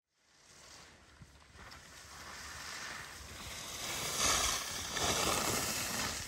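Telemark skis sliding and scraping over packed snow as a skier carves turns close by. It builds up and is loudest about four seconds in.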